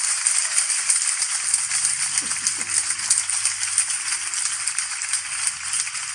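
Live concert audience applauding, the clapping slowly thinning out towards the end.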